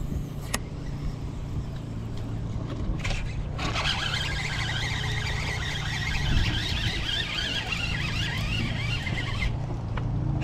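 A boat motor running steadily with a low hum. From about three and a half seconds in, a louder rushing hiss joins it for about six seconds, then drops away.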